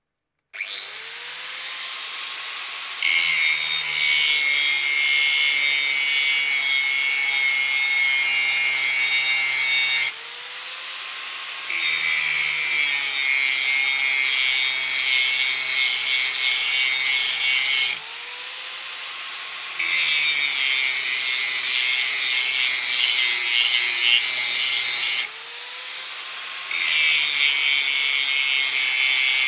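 An angle grinder starts up, then grinds steel in four long passes of six to seven seconds each, a loud hissing grind. Between passes the motor runs free and quieter, and its pitch drops as the disc bites at the start of each pass.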